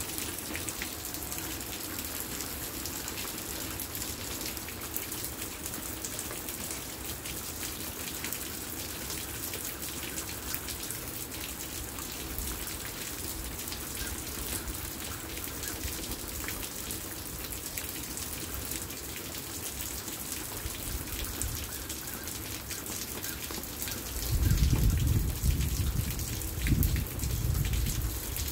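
Steady rain falling on a wet concrete patio and wooden deck: a fine, even patter of many drops. About four seconds before the end, a louder low rumble comes in and swells unevenly over the rain.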